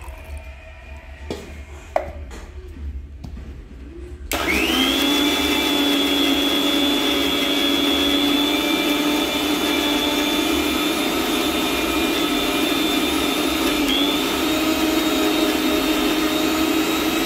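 Electric mixer grinder with a steel jar grinding ginger and garlic with water into a paste. After a few light knocks as the jar is filled and closed, the motor starts about four seconds in, spins up quickly to a steady high whine, dips briefly in pitch near the end, and stops suddenly.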